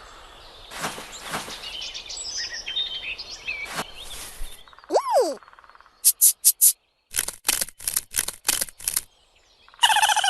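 Fox calls outdoors: a single arching yelp about five seconds in, then a quick run of short sharp barks, over a bed of outdoor noise with small bird chirps.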